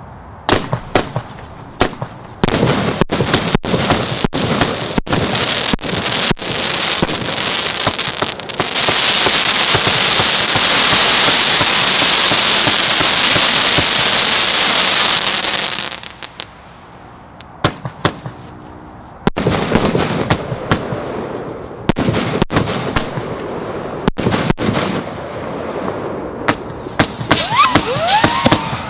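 Celtic Fireworks 'The Big Player', a 76-shot 1.4G firework cake with 25–30 mm tubes, firing: a rapid run of sharp launch shots and bursts, then a dense steady hiss for several seconds in the middle. After a short lull about sixteen seconds in, more shots follow, and rising whistling tones begin near the end.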